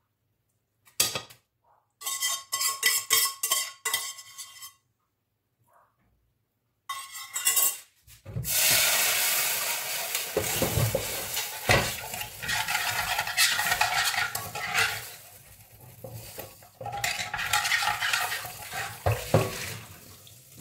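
Metal pans and utensils clinking and knocking. Then a long hiss of water swirling in a metal pan as it is given a quick rinse with a little water, with a few knocks of the pan.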